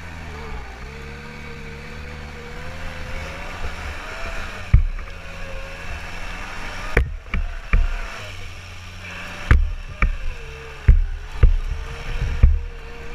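Off-road buggy engine running, its pitch wavering up and down, with several loud, sharp thumps from about five seconds in as the buggy jolts over rough ground.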